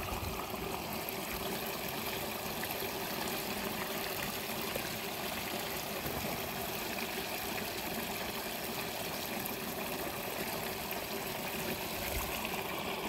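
Steady trickle of shallow water running along a small irrigation ditch.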